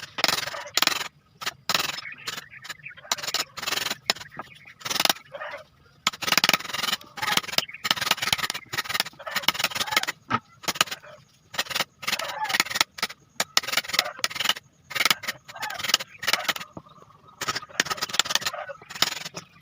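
Repeated, irregular rasping strokes of a hand tool scraping or cutting into wood.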